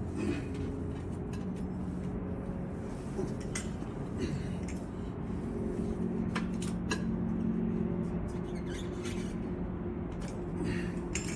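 A pizza cutter's wheel rolling screen spline into the channel of a window-screen frame: scattered light clicks and scrapes, over a steady low hum.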